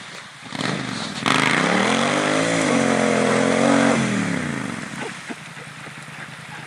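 Triumph Scrambler parallel-twin motorcycle engine revving up suddenly about a second in, pitch rising then holding steady. It falls away after about four seconds, leaving a lower steady engine hum.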